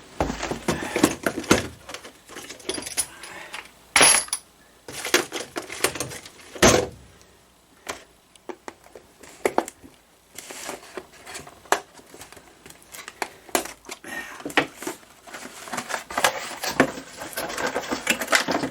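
Unboxing handling noise: side cutters snipping the small RC crawler free of its packaging, with irregular clicks, rattles and rustling of plastic and cardboard. Two louder sharp knocks come about four and about seven seconds in.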